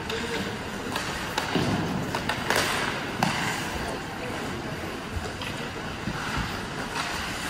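Ice hockey rink noise during play: a steady noisy background with a handful of sharp knocks, the sort made by sticks, puck and boards, and faint voices from the stands.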